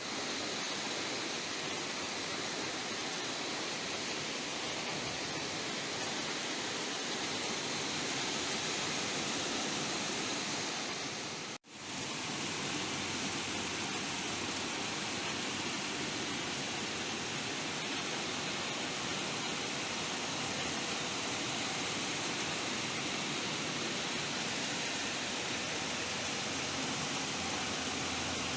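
Steady rain falling, an even hiss. It cuts out for an instant about twelve seconds in.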